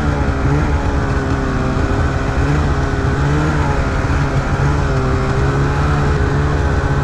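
Snowmobile engine running at a steady cruise, its pitch drifting gently up and down, over a steady rushing noise from the ride.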